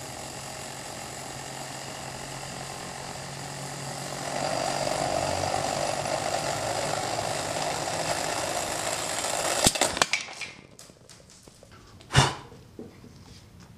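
Model Hero's engine (aeolipile) spinning at speed, its steam jets hissing with a steady hum. About four seconds in it grows louder as the rotor goes through a harmonic vibration. Near ten seconds it drops away after a few clicks, and a single sharp knock follows near the end.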